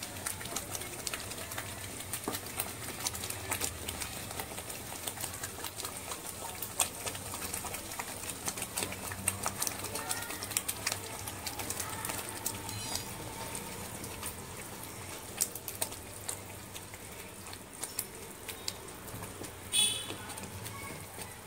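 Ground masala gravy frying in oil in a pan: a steady low sizzle with scattered crackles and pops, as raw chicken pieces are added.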